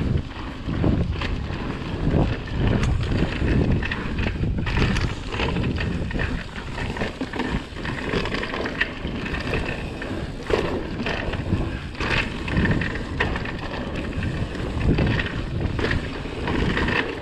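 Mountain bike ridden fast down a dirt singletrack: wind buffeting the microphone, with the tyres rumbling over the dirt and the bike clattering and rattling over bumps.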